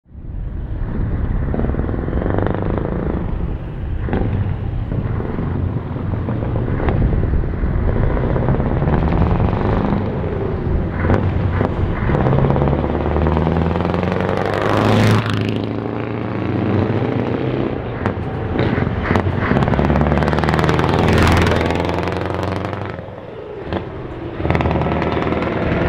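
Scania 4-series truck diesel engines revving hard under acceleration, loud, with the pitch climbing and falling through several pulls, strongest about halfway through and again a few seconds later, then briefly easing off before picking up again.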